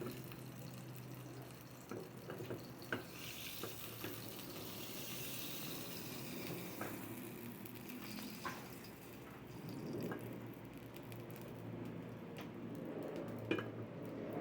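Water running from a kitchen tap into a sink, heaviest for a few seconds in the first half, with a few sharp knocks scattered through.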